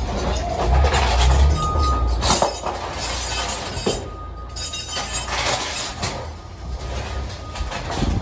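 Steel tie-down chains clinking and rattling in a series of irregular sharp knocks as they are handled and pulled across a load of steel coils. A low engine rumble is heard in the first couple of seconds and then fades.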